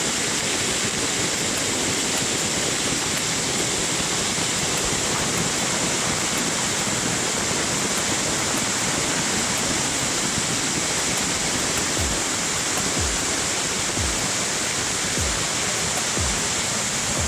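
Waterfall heard from right at its base: a steady, loud rush of water falling onto rock and splashing into the plunge pool.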